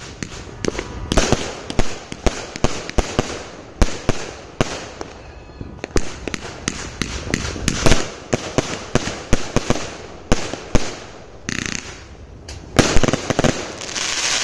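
Dragon Fireworks 'Business is Booming' aerial fireworks going off in quick succession: many sharp bangs a few tenths of a second apart, with stretches of hissing crackle near the end.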